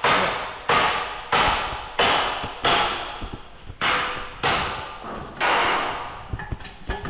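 Repeated hammer blows on metal, about one every two-thirds of a second, each leaving a long fading ring; the blows grow sparser and fainter over the last few seconds.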